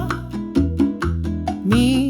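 AI-generated Cuban son-style music: a band with bass, plucked strings and hand percussion playing between vocal lines, with a singer's voice coming back in near the end.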